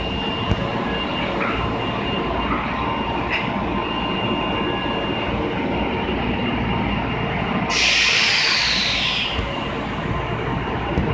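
Osaka Subway 22 series electric train at the platform, its running noise steady as it starts to pull away. About eight seconds in there is a loud burst of hissing air lasting about a second and a half.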